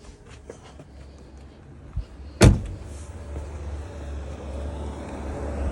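Tesla Model Y front trunk (bonnet) being opened: a few light clicks, then one sharp, loud clunk about two and a half seconds in. A low steady rumble follows and grows slowly louder.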